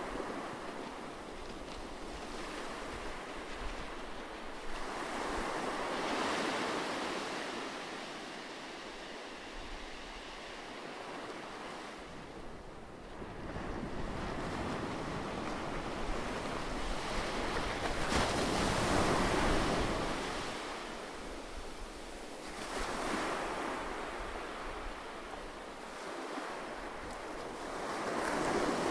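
A soft rushing noise that swells and ebbs slowly every five or six seconds, like surf washing on a shore.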